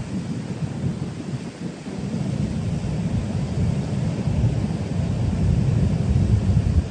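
Wind buffeting the microphone: a loud, uneven low rumble that rises and falls, dipping briefly about two seconds in.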